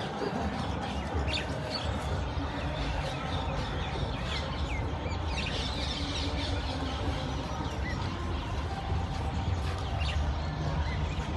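Small birds chirping in many short, quick calls, thickest a few seconds in, over a steady low background rumble.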